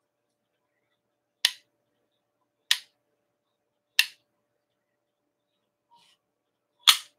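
Four short, sharp clicks: three about a second and a quarter apart, then a fourth, the loudest, nearly three seconds later.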